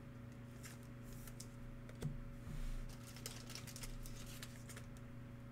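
Faint clicks and taps of trading cards being handled and passed between fingers, about one a second, over a steady low electrical hum.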